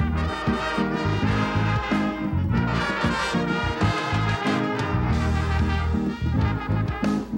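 Brass band playing, with trumpets over low brass and a moving bass line.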